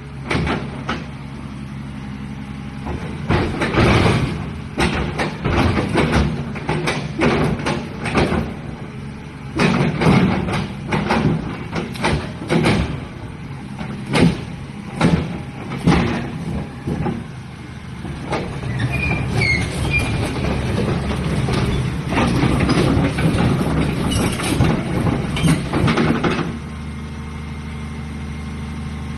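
Hyundai 305 excavator's diesel engine running steadily, with repeated sharp knocks and clanks through the first half. Around the middle it goes into a louder, steadier stretch, then drops back near the end.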